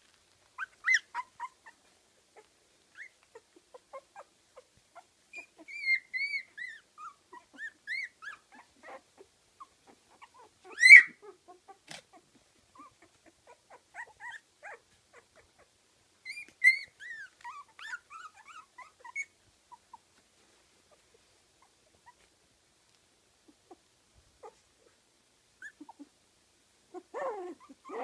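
Fifteen-day-old kooikerhondje puppies whimpering and squeaking in short, high-pitched cries that come and go, the loudest about ten seconds in. The cries fall quiet for a few seconds, then lower-pitched squeals return near the end.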